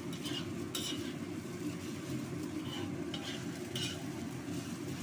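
Metal spatula stirring and scraping fried rice around a hot wok, with a few short scrapes of metal on the pan over a steady low hum and light sizzling.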